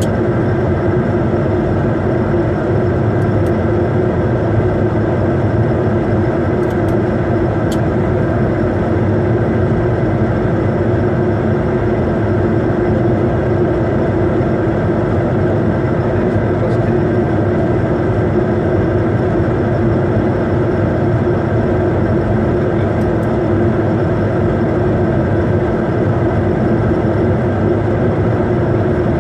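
Steady cabin noise inside a Bombardier Challenger 350 business jet on approach: airflow rush with the even hum of its twin Honeywell HTF7350 turbofans, a few tones held steady throughout.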